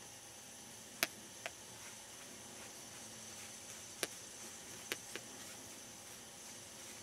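Quiet woods: a steady faint hiss with a faint high steady tone, broken by a handful of short sharp clicks or snaps, two about a second in and three more between four and five seconds in.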